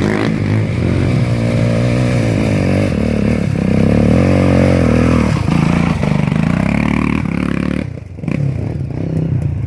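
Single-cylinder four-stroke trail motorcycle engine running under throttle, its pitch rising and falling as it revs. There are brief dips when the throttle is eased, the deepest about eight seconds in.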